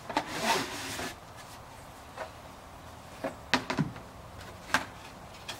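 Plastic sprayer parts being handled in a cardboard box: a rustling scrape for about the first second, then several light knocks and clicks in the second half as the plastic tank of an HDX 1-gallon sprayer is lifted out.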